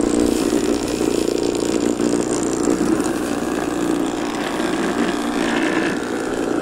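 A DIY radio-controlled electric mower running, its 120 W 24 V e-scooter motor spinning a brush-cutter blade through grass as hoverboard hub motors drive the wheels. It gives a steady hum that wavers a little in pitch, over a hiss.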